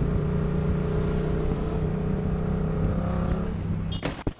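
Motorcycle engine running steadily at speed while lane splitting between freeway cars. About four seconds in, the engine sound breaks off into several sharp knocks as the bike strikes the side of a car and goes down.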